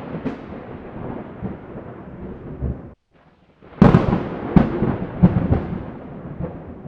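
Water churning and splashing in a bucket as a small submersible pump circulates flushing water through a copper radiator, with a few sharp knocks in the second half.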